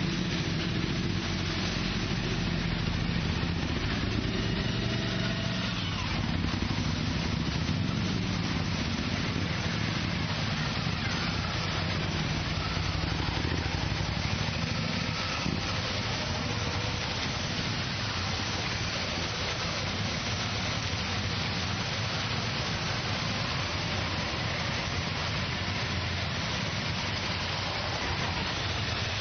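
A column of Suzuki V-Strom motorcycles riding slowly past one after another, their V-twin engines running at low revs. A steady hiss of rain and wet road runs underneath.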